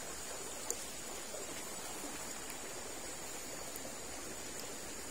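Steady rushing hiss of river water picked up by a submerged camera, with a thin high whine over it and one faint tick less than a second in.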